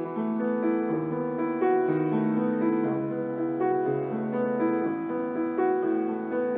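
Solo piano playing the instrumental introduction to a folk ballad, a steady run of sustained chords and melody notes.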